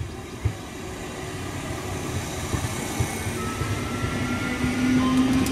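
ICF-built electric multiple unit (EMU) local train running past close by, getting steadily louder as it draws level. The wheels rumble and knock on the rails, and a steady motor hum comes in near the end.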